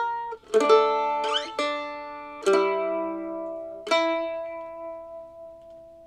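Eastman mandolin played slowly: about six plucked notes in the first four seconds, then the last note left to ring and fade away.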